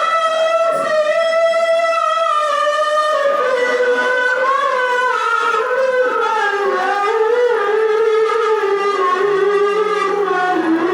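Qur'an recitation (tilawah) by a solo reciter sung in a high register: long held notes with ornamented melismatic turns, the pitch sinking slowly through the phrase.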